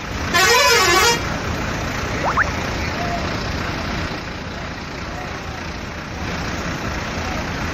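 A bus horn sounds once for about a second near the start, its pitch warbling up and down, over the steady noise of a bus engine running and crowd chatter.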